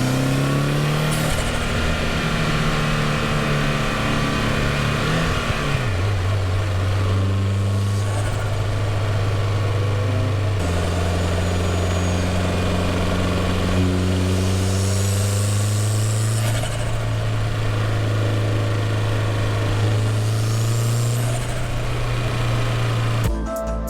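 2020 Subaru WRX's turbocharged flat-four engine pulling under acceleration, its note climbing and then dropping back several times, with a faint high turbo whistle rising and falling with each pull. Music comes in just before the end.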